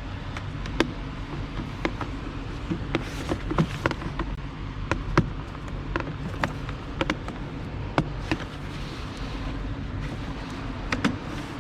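Plastic interior trim panel being handled and fitted, giving irregular sharp clicks and knocks of hard plastic over a steady low workshop hum.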